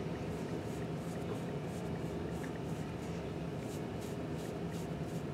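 Makeup brush sweeping blush powder across the cheek: faint soft swishes repeating every half second or so, over a steady low hum.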